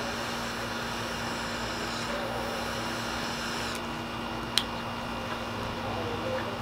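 A lighter hissing as a cigar is relit, cutting off suddenly just under four seconds in, followed by a single sharp click. A steady low hum runs underneath.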